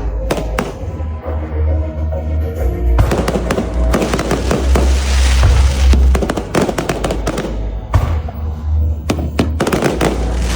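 Fireworks going off in rapid clusters of bangs and crackles over loud music with a heavy bass. The bangs thin out briefly about a second in, then come thick again from about three seconds on.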